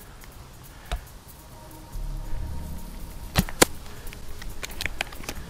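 Shot from a spring-powered Silverback SRS A1 airsoft sniper rifle: two sharp cracks in quick succession about three and a half seconds in, with a fainter click about a second in.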